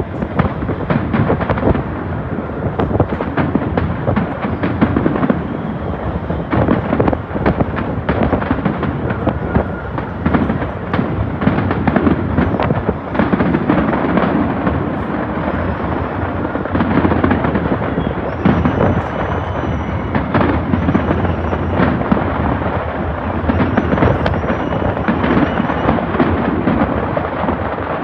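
An aerial fireworks display: a continuous barrage of bangs and crackling bursts as many shells go off in quick succession.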